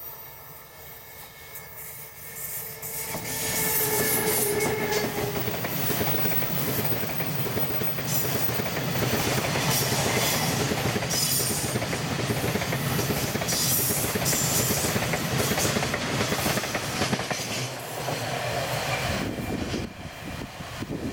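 EH500 electric freight locomotive passing with a whine for the first few seconds, then a long string of tank wagons rolling by: steady wheel-on-rail rumble and clickety-clack over rail joints, with high-pitched wheel squeal coming and going. The noise drops off near the end as the last wagon goes.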